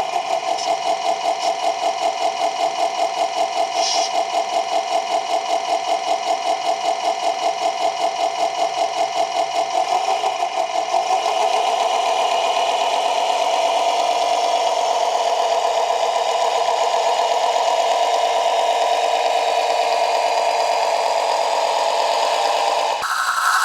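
Radio-controlled model bulldozer's motor and gear drive running with a steady mechanical whine. It pulses about three times a second for the first ten seconds or so, then evens out.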